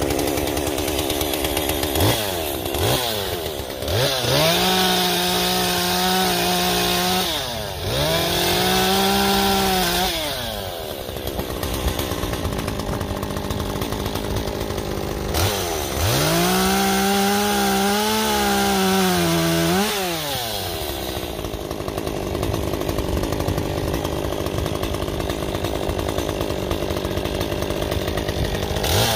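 Stihl chainsaw idling and revving in bursts. Two quick blips are followed by three high-speed runs of about two to four seconds each, dropping back to idle in between, and it revs up again at the end.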